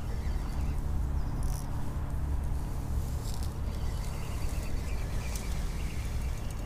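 Outdoor ambience: a steady low rumble with a few faint, short bird chirps over it.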